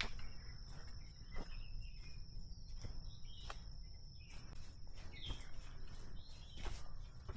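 Forest ambience: a steady high-pitched insect trill, a few short bird chirps, and scattered footsteps on the trail.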